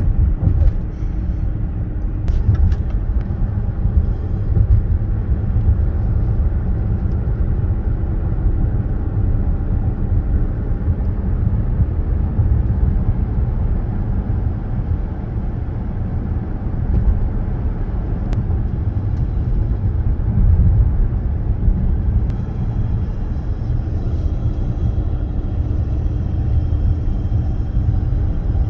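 Supercharged Range Rover driving, heard from inside the cabin: steady road and engine rumble with a steady whine that drops out about eight seconds in and returns about twenty-two seconds in, joined by a fainter high whine near the end. This is the grinding, squealing steering noise that comes and goes while driving forward, which the owner suspects comes from the electric power steering rack.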